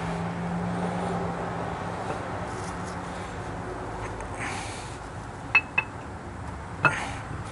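Metal parts of a camshaft clinking against the engine block as the roller cam is eased through its last bearing: two quick ringing clinks close together about two-thirds of the way in, and a single knock near the end. A low steady hum fades out in the first half.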